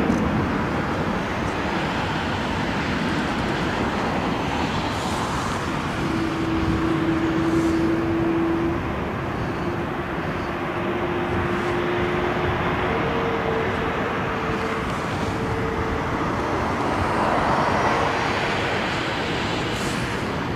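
Jet airliner taxiing: the Rolls-Royce Trent 1000 engines of an ANA Boeing 787-9 give a steady rushing noise, with a whine that comes in partway through and steps up in pitch.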